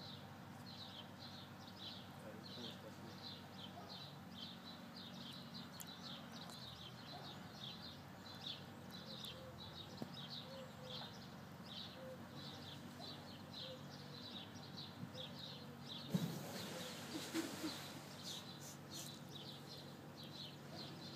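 A white tiger leaping into a pond, making a loud splash about sixteen seconds in, followed by a couple of seconds of water splashing. Throughout, a bird repeats a short high chirp two or three times a second over a low, steady murmur.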